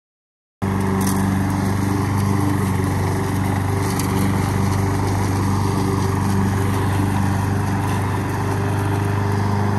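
After a brief silence, a Honda HRN walk-behind lawn mower's four-stroke engine runs steadily under load as it cuts grass.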